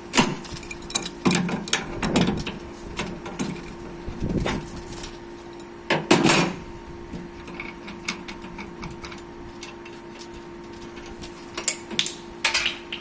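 Tools and metal fittings being handled and knocked together during copper pipe work: irregular knocks and clinks, some in quick clusters, over a steady low hum.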